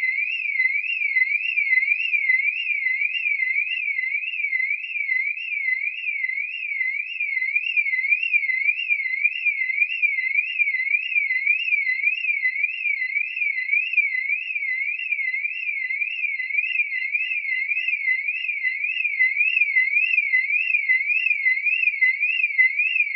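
Car alarm siren sounding continuously, a single high electronic tone sweeping rapidly up and down in pitch at an even, unbroken pace.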